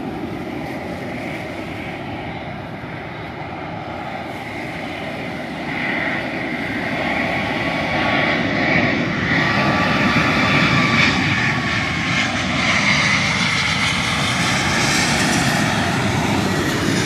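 Twin-engine jet airliner on final approach, passing low overhead to land. Its engine noise grows louder about six seconds in and stays loud, with a steady whine over the rushing roar.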